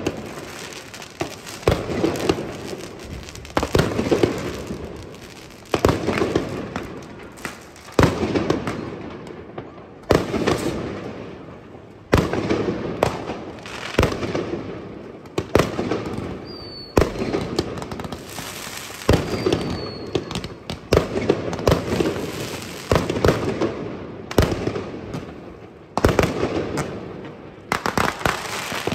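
Fireworks going off: a sharp bang about every two seconds, each trailing off in crackle, over a steady din of more distant bangs.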